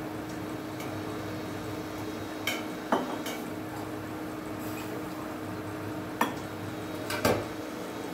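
Steel kitchen vessels and utensils clinking and knocking a few times, around three seconds in and again near the end, over a steady low hum.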